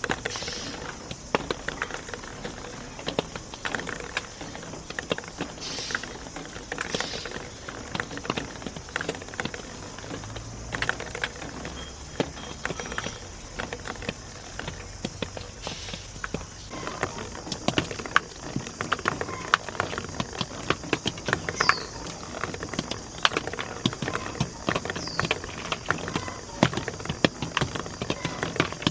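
Marbles rolling and clacking along a marble run track: a dense, irregular stream of small clicks and knocks.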